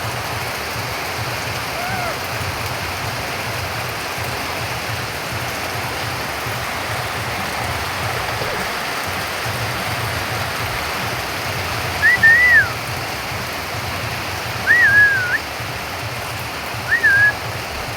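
Steady rain falling, with a bird calling during it: three short whistled calls, each rising then falling, a couple of seconds apart in the second half, and a faint one near the start.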